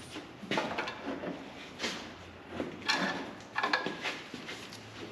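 Hand tools clinking, knocking and scraping on metal parts while the last line on a transmission is worked loose: a string of irregular clinks and rattles.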